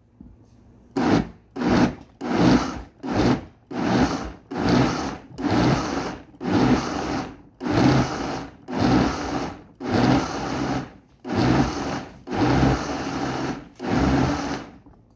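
Vitamix blender worked on its pulse switch, blending tomatoes: about fifteen short motor bursts, roughly one a second, starting about a second in.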